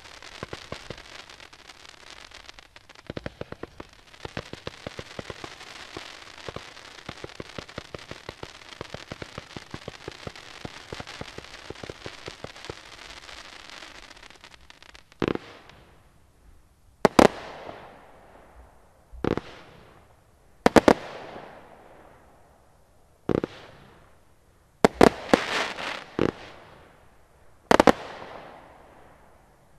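Mega Wave firework cake firing: for about fifteen seconds a dense, rapid crackle of many small pops, then a slower run of loud bangs roughly every two seconds, each trailed by a fading crackle.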